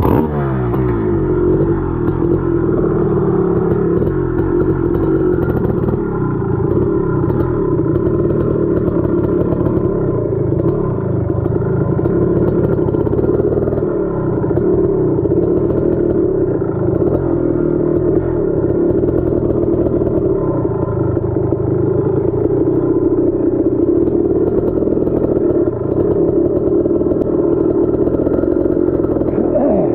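Dirt bike engine running at a fairly steady speed while being ridden along a trail.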